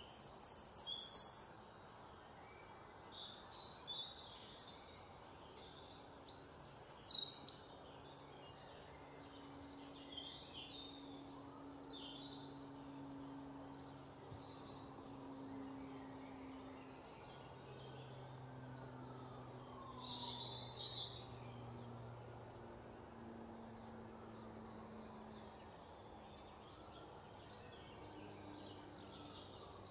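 Small birds chirping and trilling against a faint outdoor background, with louder runs of quick chirps near the start and about seven seconds in. A faint steady low drone runs underneath.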